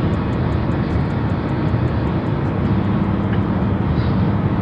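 Steady road and engine noise inside a moving car's cabin, mostly low in pitch and even throughout.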